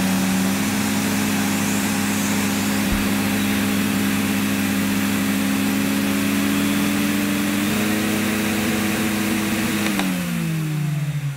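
1987 Electrolux Elite vacuum cleaner motor running on its low 400-watt setting: a steady whine over a rush of air, its pitch stepping up slightly twice. Near the end there is a click and the motor winds down. It doesn't sound right, and the owner suspects the motor is caked in muck.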